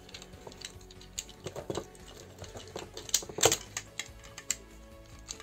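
Irregular clicks and clacks of a plastic Transformers one-step action figure being handled and turned, the loudest about three and a half seconds in, over faint background music.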